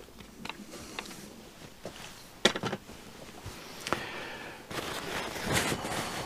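Small metal parts and a clamp being handled at a bench vise: scattered clicks and knocks, the loudest a sharp click about two and a half seconds in, then paper towel rustling over the last second and a half.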